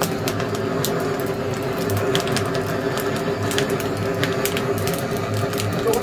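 Wood fire crackling in a firebox: irregular sharp pops and snaps over a steady hum.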